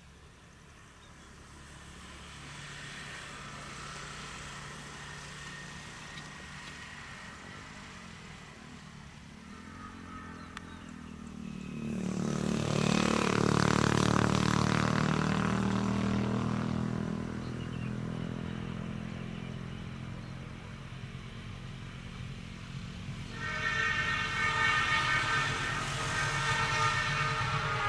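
Low hum of an approaching diesel-hauled train building up; in the middle a loud passing noise swells and fades, and about 23 s in the locomotive's horn sounds a long blast of several tones together.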